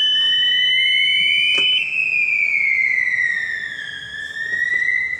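Electronic fire alarm siren sounding during a system test with a slow rising-and-falling wail. A second steady high tone stops about two seconds in, leaving the wail alone.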